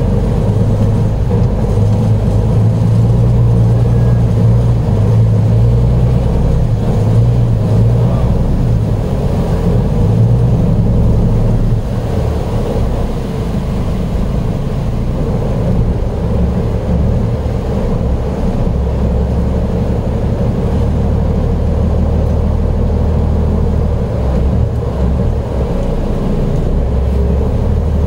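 Passenger canal boat's engine running loud and steady under way, a low drone with water and wind noise; about twelve seconds in the engine note drops lower and eases off a little.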